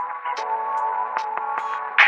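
Background electronic music: held tones with short sharp percussive hits.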